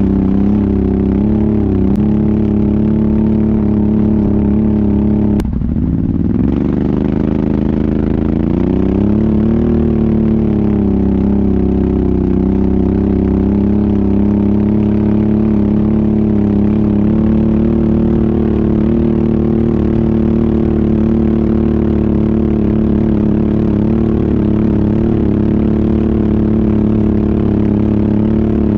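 ATV engine running steadily under way. About five seconds in the throttle closes briefly, the pitch drops, then rises again as it pulls back up to speed.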